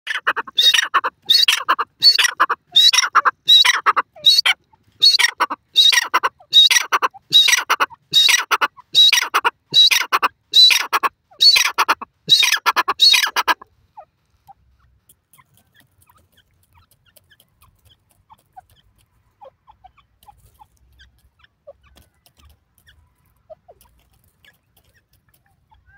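Grey francolin calling: a loud, steady series of harsh repeated call notes, about one to two a second, that stops abruptly about halfway through, leaving only faint scattered ticks.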